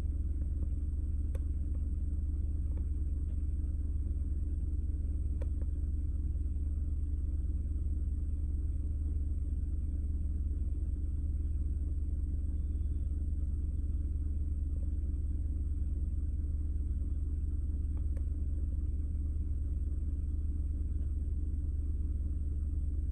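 A vehicle's engine running with a steady low rumble, heard from inside the cabin, with a few faint clicks.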